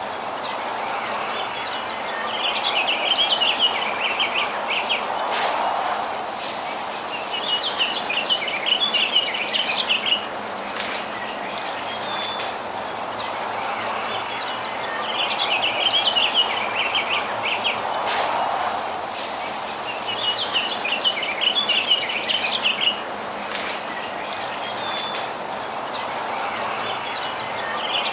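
Songbirds chirping: a rapid chittering song phrase about two seconds long, heard four times, over a steady background of distant outdoor noise.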